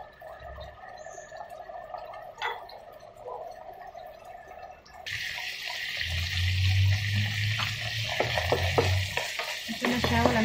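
Ground pork and sliced potatoes sizzling in a nonstick pan as the sauce cooks down, starting abruptly about five seconds in. Near the end a wooden spatula scrapes and stirs through it. Before that there is a quieter stretch with a faint steady hum and a couple of light clicks.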